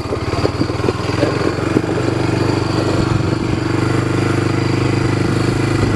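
Small vehicle's engine running at a steady pitch while driving along.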